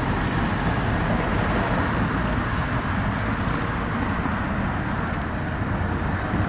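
Small-city street ambience: a steady low rumble of light road traffic passing, with faint distant voices mixed in.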